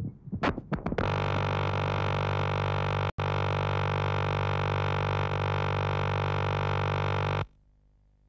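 Electronic soundtrack: a few short synthesizer stabs, then a loud, steady synthesizer drone with many overtones starting about a second in. It drops out for an instant around three seconds and cuts off suddenly near the end, leaving near silence.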